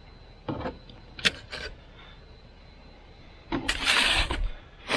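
Aluminum foil crinkling and crackling as a foil packet is picked up and handled, loud for about a second near the end. A few faint taps and clicks come before it.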